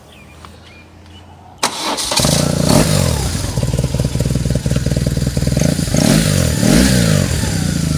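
BMW R1200C boxer-twin motorcycle on its stock exhaust starting up: a sudden loud catch about a second and a half in, then running with the throttle blipped a few times before it settles to a steady idle.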